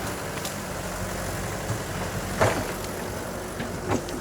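A heavy construction machine's engine running steadily at low speed, with two brief sharp sounds that fall in pitch about two and a half and four seconds in.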